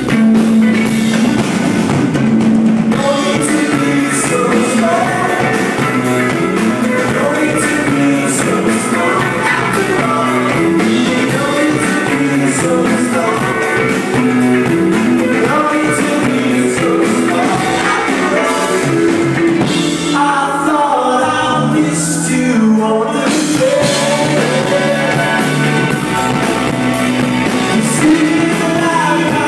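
Live rock band playing electric guitar, keyboards and drums, with singing. The drums drop out for a few seconds about twenty seconds in, then come back.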